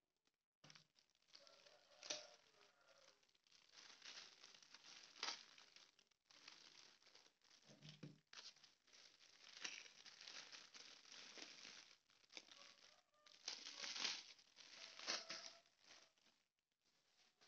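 Clear plastic wrapping crinkling and rustling as it is pulled off a tablet's replacement LCD screen assembly, starting about a second in and going in irregular handfuls with a few sharper crackles.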